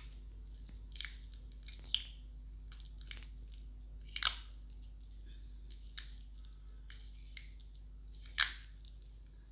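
Cellotape being wound around binding wire by hand: scattered crackles and short rasps of tape pulling off and crinkling, the loudest about four and eight and a half seconds in.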